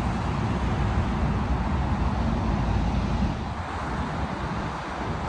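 Steady road traffic noise: the low, even sound of cars on a road.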